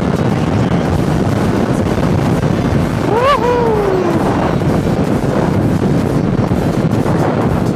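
Heavy wind rush buffeting the microphone as a Yamaha MT-07 cruises at highway speed, about 115–125 km/h in sixth gear, with its engine running beneath the wind. Just past three seconds in, a brief pitched sound rises sharply and then slides down over about a second.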